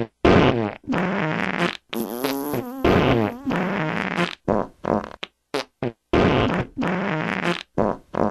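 A rapid string of farts, one after another with abrupt cut-offs: some long with a wavering pitch, others short blips.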